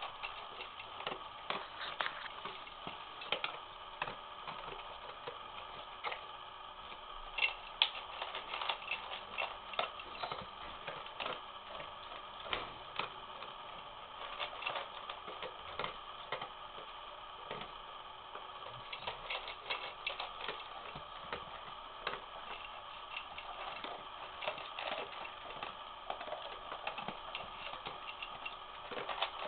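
A Newfoundland dog eating dry kibble from a raised stainless steel bowl: an unbroken run of irregular crunches and clicks.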